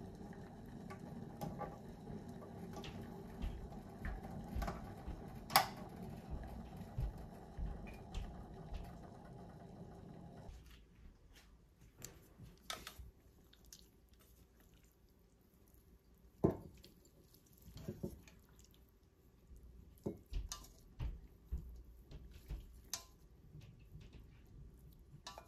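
Broth simmering in a saucepan on an electric hot plate, a steady bubbling with small pops and one sharp click about five seconds in, cut off abruptly about ten seconds in. After that it is quieter, with scattered clicks and knocks of chopsticks and a saucepan as rice noodles are lifted into a bowl.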